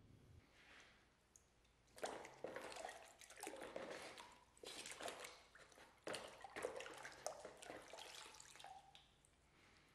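Steel axe head swished back and forth in a plastic bucket of dirty liquid, giving irregular sloshing and splashing that starts about two seconds in and dies away near the end.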